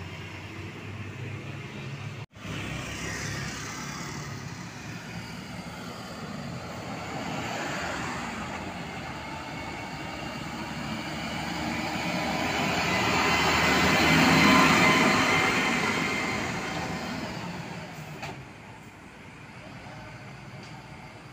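UD Quester ready-mix concrete truck driving past: its diesel engine and tyre noise grow steadily louder, peak about fourteen seconds in, then fade as it pulls away. A brief cut-out in the sound about two seconds in.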